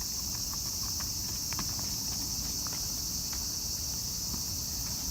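Steady high-pitched chorus of insects, with a few faint clicks and handling noises.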